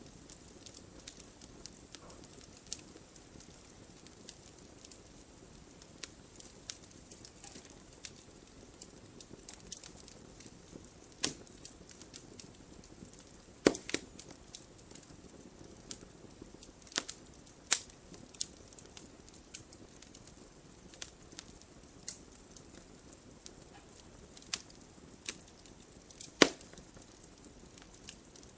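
Wood fire burning in a fireplace, crackling with irregular sharp pops over a soft steady rush of flame. A few louder snaps stand out, the loudest near the end.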